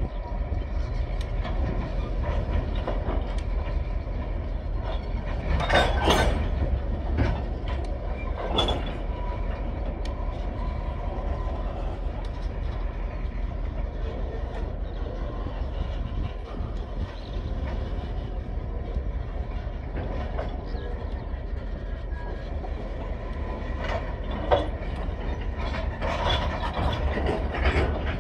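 Coal train's hopper wagons rolling past close by: a steady rumble of steel wheels on the rails, broken by sharp knocks and clanks, the loudest about six seconds in and a few more near the end.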